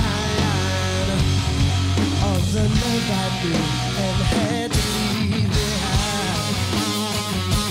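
Live rock band playing: electric guitar over bass and drums, with a man singing.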